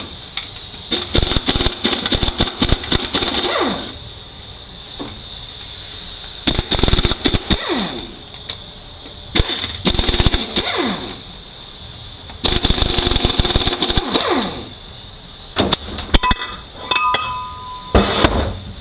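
Power wrench rattling in about four bursts of roughly two seconds each, each trailing off in a falling whine, as it runs out the 13 mm tail-housing bolts of a 4R75W automatic transmission. A few light ringing metal clinks come near the end.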